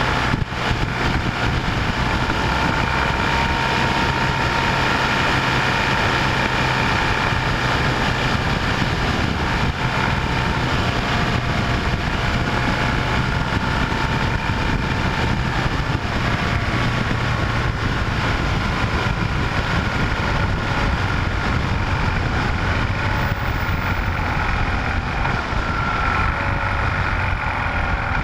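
A steady vehicle engine drone: a low hum with faint, even whining tones above it, unbroken and unchanging.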